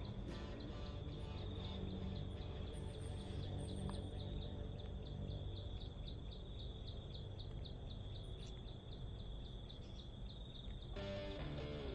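An insect calling steadily, a high buzzing tone that pulses about three times a second, over a low rumble. Guitar music comes in about eleven seconds in.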